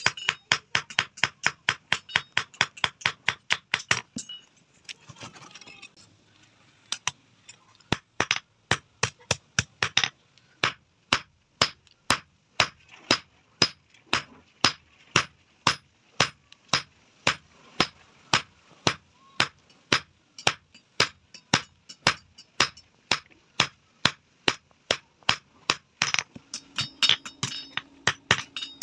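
Hammer blows on a red-hot steel rod lying on an anvil, drawing the rod out, in a steady rhythm of about three strikes a second. The hammering stops for about four seconds, starting about four seconds in, then resumes. A low steady hum comes in near the end.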